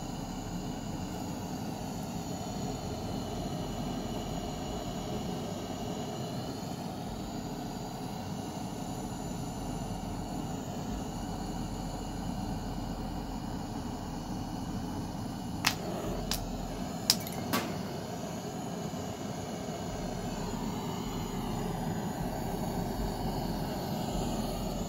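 Steady rushing hiss of a gas torch flame heating an oil-filled light bulb, with four sharp pops in quick succession about two thirds of the way through as the popcorn kernels inside the bulb burst.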